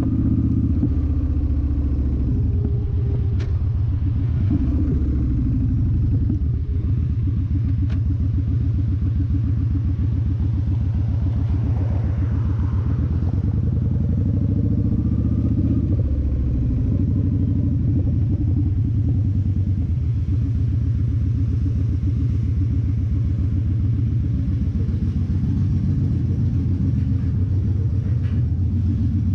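Victory Vegas V-twin engine through a Bassani Pro-Street turnout exhaust, running at low road speed. Its revs fall and rise a few times as the bike slows, turns and pulls on.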